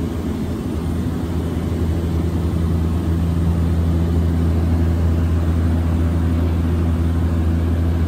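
Twin Otter DHC-6-300's twin turboprop engines and propellers heard from inside the cabin in flight: a loud, steady, deep hum with an even rushing noise over it.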